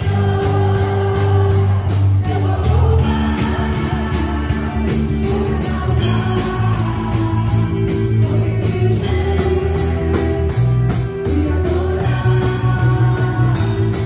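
Live worship band playing an upbeat Christian pop-rock song, with drum kit, guitars and keyboard, and voices singing. A drum beat runs steadily at about four strokes a second.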